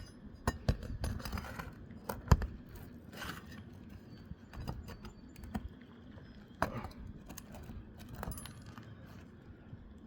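Metal tools clinking, tapping and scraping on roof shingles as nails are pried out to release the shingle rows, with a sharp knock a little over two seconds in.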